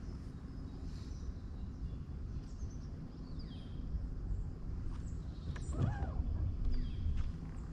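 Birds chirping over a steady low rumble of wind on the microphone, with short high chirps scattered throughout and one louder, wavering call about six seconds in.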